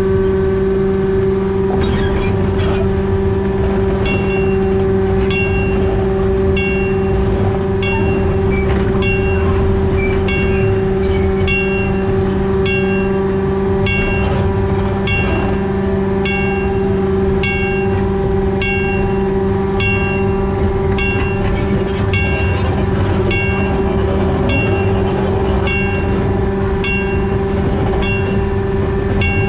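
Narrow-gauge locomotive converted to diesel-hydraulic drive, running along with a steady drone and whine from its diesel engine and hydraulic transmission over a low rumble. From about four seconds in, a bright ring repeats about once a second.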